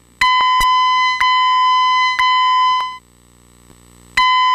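Fire alarm voice evacuation speaker sounding a steady electronic tone of about 1 kHz. It comes in three pulses of about a second each, with a click at the start of each, then stops for about a second and starts again: the three-pulse evacuation signal played between the spoken messages.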